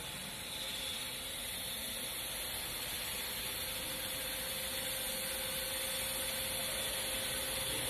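C6151 lathe running steadily, a constant hiss and hum with a faint steady whine through it.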